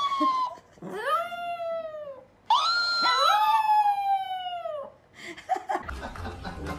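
Chihuahua howling: three long howls, each rising and then sliding down in pitch. Near the end the howling stops and a low hum comes in.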